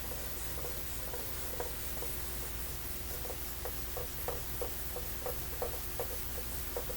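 Faint, short rubbing strokes of a small thermometer part being scrubbed clean with cleaner, sparse at first and then coming a few times a second from about three seconds in.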